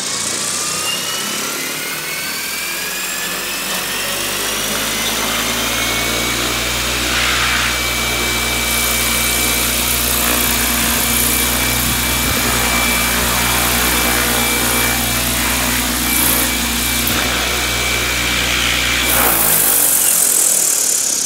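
Align T-Rex 600L Dominator electric RC helicopter running on the ground: the motor and gear whine climbs in pitch over the first several seconds as the rotor spools up, then holds steady over the deep thrum of the spinning rotor blades. Near the end the deep thrum drops away.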